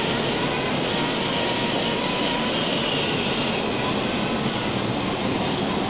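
Turtle Wax Bubbilizer foam applicator running on its mechanical float: a steady rushing of water and foam that stays even throughout.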